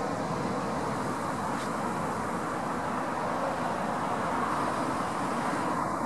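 Honey bee swarm in flight, thousands of bees making a steady, dense hum as the swarm moves into a top-bar hive.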